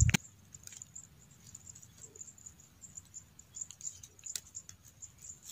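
Insects chirring in a steady, finely pulsing high trill, with a few faint clicks and rustles of hands moving dry straw.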